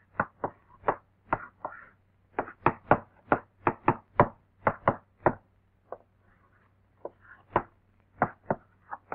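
Chalk tapping against a blackboard as figures are written out: a quick, irregular run of sharp taps, with a brief lull about six seconds in.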